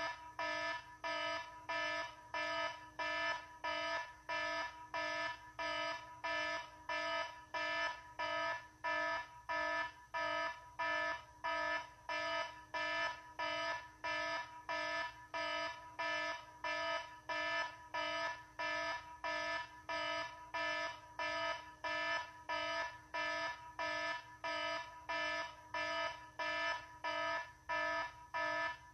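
An electronic alarm beeping over and over at an even pace, about three beeps every two seconds, each beep a short steady note with several tones stacked together.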